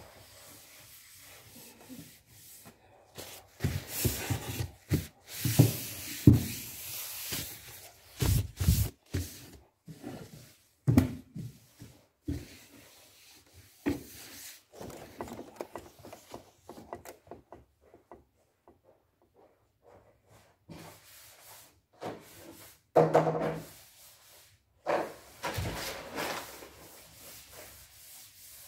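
Household cleaning: cloth rubbing and wiping with scattered knocks and thumps as things are moved on wooden furniture, coming in irregular bursts with a quieter pause past the middle.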